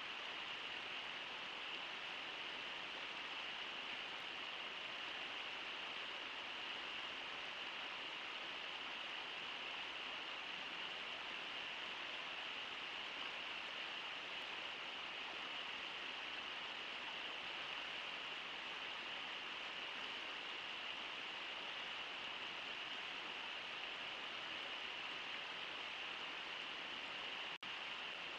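Steady rush of river water, an even hiss with no splashes or other events, cutting out for a split second near the end.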